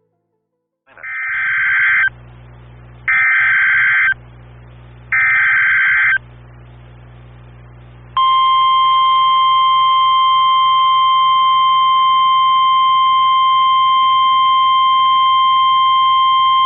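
Emergency alert SAME header: three one-second bursts of screeching digital data tones, a second apart. About two seconds later comes a steady single-pitch 1050 Hz NOAA Weather Radio warning alarm tone, announcing a tornado warning.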